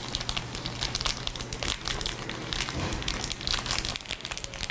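Dense, continuous crinkling crackle of tea containers being handled for a Foley take, made to sound like frying.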